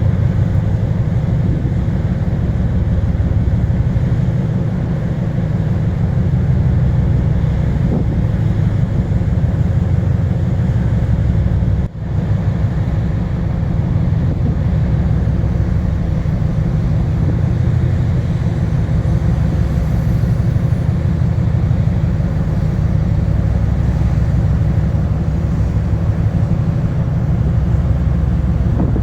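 Icebreaker's engines running with a steady low rumble, with a brief dropout about twelve seconds in.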